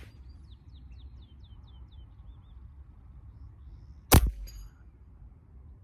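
A single shot from a Beeman Commander .22 PCP air rifle about four seconds in: one sharp crack, the loudest thing here, with a short ring after it. Before it, a bird gives a quick run of short falling chirps.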